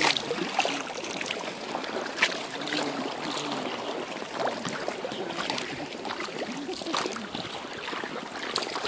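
Double-bladed kayak paddle strokes in river water: short, irregular splashes and drips over a steady wash of moving water.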